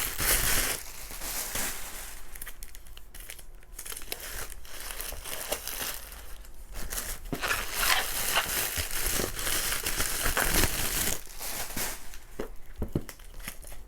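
Crinkly packaging rustling and crinkling in irregular bursts as albums and merchandise are handled and piled together.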